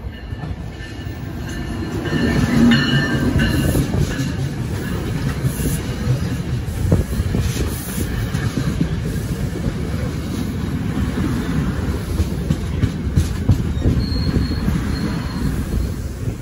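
New Jersey Transit locomotive-hauled train of multilevel coaches passing close by, rising to full loudness over the first two seconds. Steel wheels rumble and knock over the rail joints, with thin wheel squeal on the rails.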